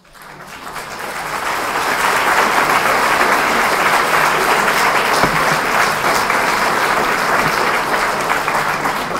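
Audience applauding, swelling over the first two seconds and then holding steady.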